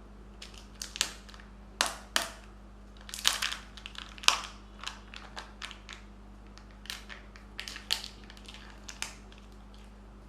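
Kinder Joy egg packaging being handled and opened: a string of sharp, irregular crinkles and snaps of foil and plastic.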